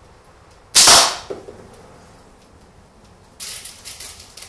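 A slingshot with Theraband Gold bands fires a 9.5 mm steel ball: one sharp, loud crack of the bands and the ball striking the target, with a smaller knock about half a second later. Near the end there is a brief, scratchy clatter.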